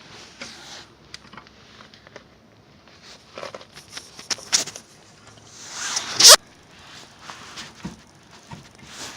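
Hand tools and rear brake parts being handled: scattered clicks, light knocks and short scrapes, with a longer, louder scrape that swells and ends in a sharp clack about six seconds in.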